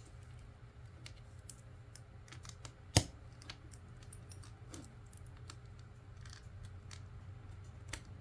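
Plastic LEGO pieces clicking and tapping as they are handled and fitted together, with one sharp snap about three seconds in and another near the end.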